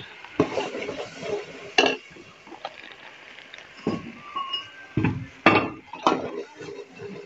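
A steel ladle scraping and clinking against a metal cooking pot as thick frying masala is stirred: a run of irregular sharp clinks and short scrapes.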